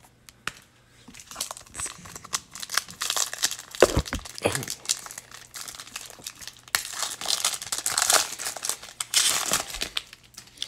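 Trading-card pack wrapper being crinkled and torn open by hand, a dense run of crackles and rustles with a single knock about four seconds in; cards then slide out of the pack.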